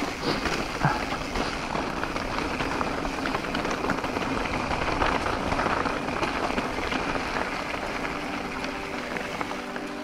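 Mountain bike rolling fast down a dirt forest trail: a steady rushing noise of tyres on soil and dry leaves, with many small rattles and knocks from the bike over the bumps.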